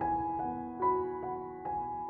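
Instrumental background music: a slow, gentle melody with a new note a little more than twice a second.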